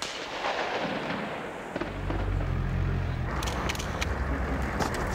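Gunfire: scattered sharp cracks, most of them bunched in the second half, over a low rumble that comes in about two seconds in.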